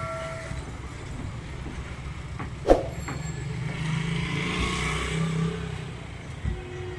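Road traffic: a steady low rumble of motor vehicles, swelling as a vehicle passes about four to five and a half seconds in. A single sharp knock comes nearly three seconds in.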